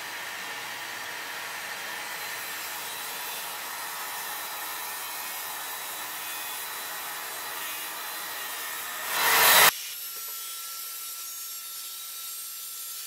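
Makita cordless circular saw ripping plywood along a guide rail, with a vacuum drawing dust from it: a steady cutting noise that swells loudest just before ten seconds in, then drops abruptly to a thinner, quieter sound.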